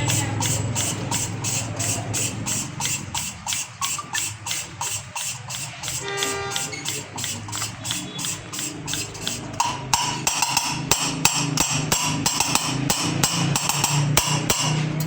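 Engine valve being hand-lapped into its seat in a generator's cylinder head: steady rhythmic tapping of the valve against the seat, about three taps a second, louder in the last few seconds.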